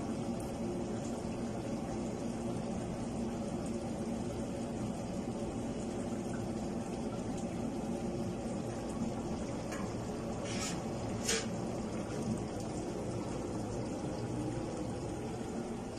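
Pots boiling and simmering on a gas stove, a steady bubbling, with two brief sharp sounds about ten and a half and eleven seconds in.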